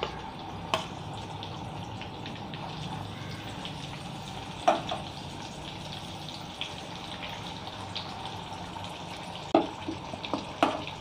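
Fish frying in hot oil: a steady crackling sizzle, with a few sharp knocks, most of them near the end.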